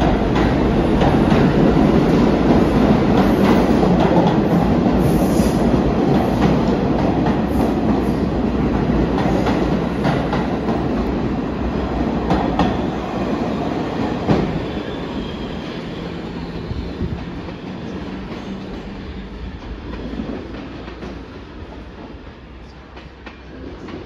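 R46 subway train pulling out past the platform, its wheels clattering over the rail joints. It is loud at first and fades steadily as the cars leave, with one sharp clack about fourteen seconds in.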